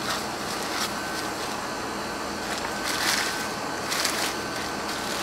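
Plastic biohazard bag crinkling and rustling as it is handled with heavy rubber gloves, in a few short bursts, the loudest about three and four seconds in, over a steady background hiss.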